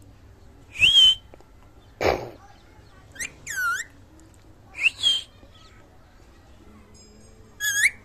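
Indian ringneck parakeet giving about five short, high-pitched calls and whistles, several rising in pitch, each lasting well under half a second.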